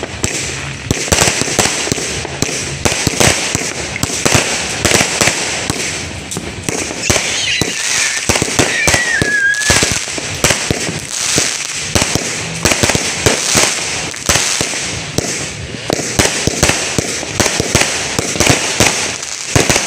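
Many fireworks and firecrackers going off at once in a dense, irregular stream of bangs and crackles. A wavering whistle falls in pitch about seven to ten seconds in.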